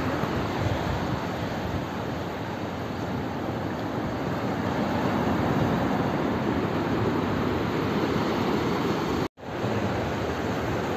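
Sea surf breaking and washing up a sandy beach: a steady rush of waves that drops out for an instant about nine seconds in.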